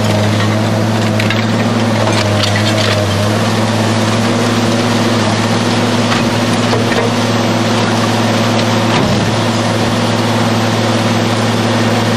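Mobile industrial shredder running steadily with a deep engine hum, its rotors cracking and snapping the last scrap in the hopper, mostly in the first few seconds, with a few scattered cracks later.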